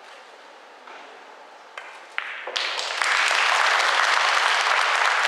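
A few sharp clicks of pool balls striking, then audience applause breaking out about two and a half seconds in and going on steadily, greeting the match-winning shot in a 9-ball final.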